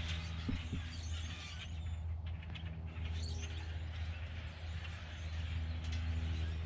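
An engine idling steadily, a low hum with even overtones that eases slightly a couple of times.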